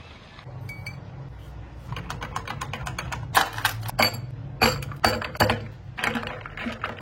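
Typing on a computer keyboard: irregular key clicks that grow denser and louder about two seconds in, over a low steady hum.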